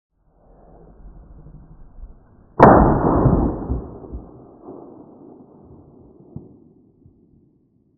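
Wind rumbling on the microphone, then a single rifle shot about two and a half seconds in, its report dying away over a second or so.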